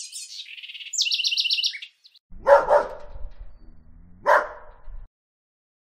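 Birds chirping, with a quick trill of about eight notes near the start, then a dog barking: two quick barks about two and a half seconds in and a single bark about four seconds in.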